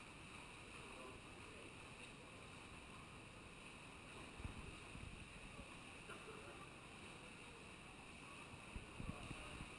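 Near silence: the faint, steady hiss of an indoor swimming-pool hall, with a few soft low thumps about four and a half and nine seconds in.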